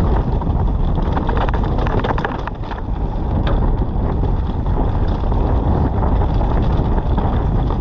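Wind rushing over the microphone of a mountain bike's ride-along camera on a fast descent, with a few sharp knocks and rattles from the bike over rough ground.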